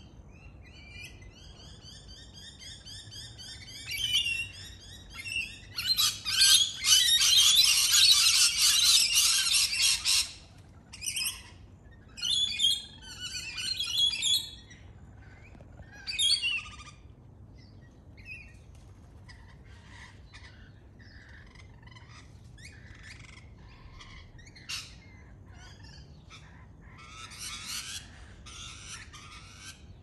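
Lorikeets calling. A few rising whistled chirps come first, then a loud, harsh screeching run of several seconds, followed by shorter screeches and softer chatter, with another harsh screech near the end.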